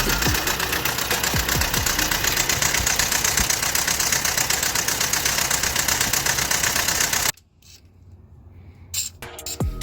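Toyota 22RE four-cylinder engine running steadily, cutting off abruptly about seven seconds in; background music returns near the end.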